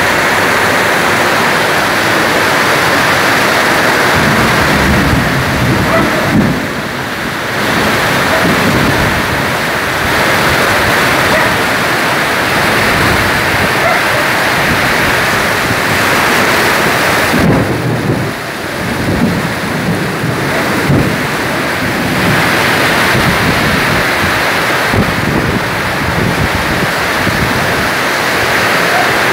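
Heavy tropical downpour, rain beating steadily on the carport roof and pavement, with low thunder rumbling now and then.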